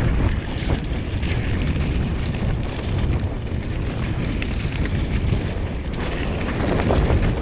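Wind buffeting a camera microphone on a moving mountain bike, a heavy low rumble with scattered small knocks and rattles from the bike going over the trail. About two-thirds through, the sound turns brighter and louder.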